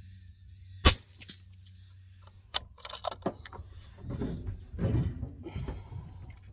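A single suppressed rifle shot from a 22BR fitted with a Wedgetail suppressor, a sharp supersonic crack about a second in, the bullet clocked at about 3,255 ft/s. It is followed by a few metallic clicks and low rustling handling noise as the shooter moves at the rifle.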